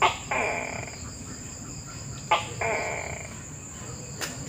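Tokay gecko calling "to-kek" twice, about two seconds apart: each call a sharp, short first syllable and then a longer, falling second one. Steady high-pitched tones run underneath, and there is a brief click near the end.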